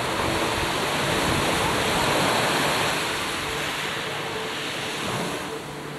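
Wind and choppy sea on a camcorder microphone: a steady rushing hiss that swells over the first few seconds and then eases.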